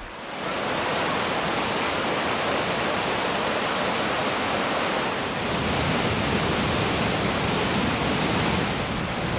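Mountain creek rushing over rocks: a steady wash of running water that comes in about half a second in.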